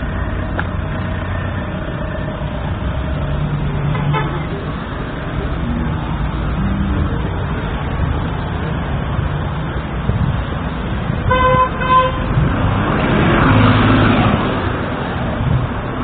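Street traffic running steadily, with a short car horn toot about eleven seconds in, then a vehicle passing close and loudest near the end.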